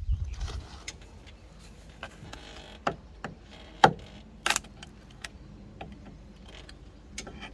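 Irregular sharp clicks and knocks, the loudest a little under four seconds in, over a steady low rumble.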